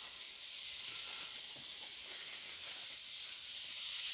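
Cheese slices sizzling in a hot ridged grill pan over a gas burner: a steady high hiss with a few faint ticks.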